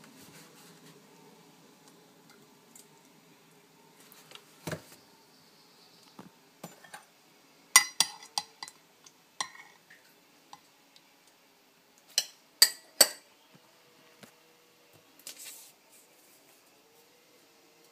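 A spoon clinking against a ceramic mug while tea with milk is stirred: scattered sharp clinks, with a cluster about eight seconds in and three strong ones around twelve to thirteen seconds.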